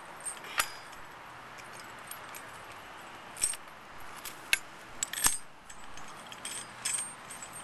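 Scattered sharp metal clinks from a screw-type coil spring compressor being fitted onto a strut's coil spring: its steel hooks and threaded rod knocking against the spring coils and against each other, about half a dozen clinks at uneven intervals.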